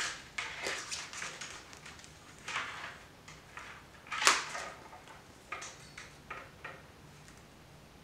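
Willow rods rustling and scraping against each other as they are woven by hand in and out of the spokes of a nest base, in irregular strokes, with one sharper click about four seconds in.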